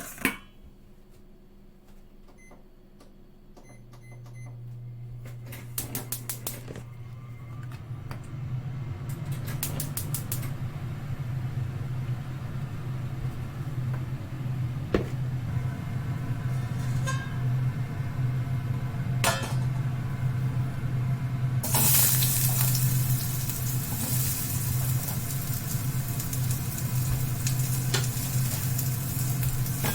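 A low steady hum starts about four seconds in and slowly gets louder, with a few clicks and knocks of utensils. About two-thirds of the way through, loud sizzling starts as food goes into a hot pan and keeps on frying.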